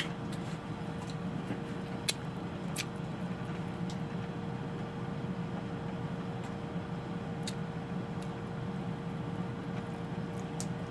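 Crab shells being cracked and picked apart by hand while eating, heard as scattered sharp clicks and cracks over a steady low room hum.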